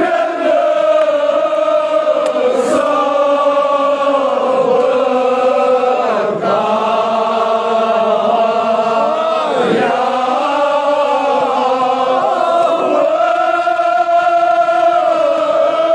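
A crowd of men chanting a Kashmiri noha, a mourning lament, together in unison, in long held phrases with short dips between them.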